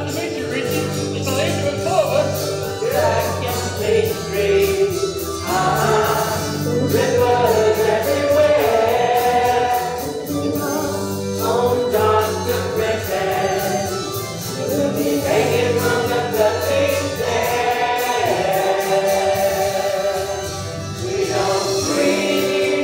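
Musical-theatre ensemble number: men and women singing together as a chorus over instrumental accompaniment with a steady beat.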